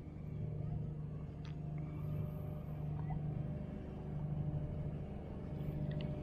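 A motor running at a steady low hum, swelling slightly now and then.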